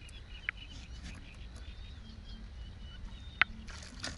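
Hooked zander splashing at the water surface beside the boat, a short splash near the end just after a sharp click, over a low steady rumble.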